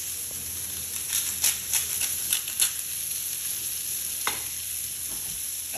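Steak sizzling steadily in butter in a hot frying pan. Over it comes a quick run of sharp clicks from about a second in to nearly three seconds, and one more click a little past four seconds in, as a plastic rock salt grinder is twisted and worked.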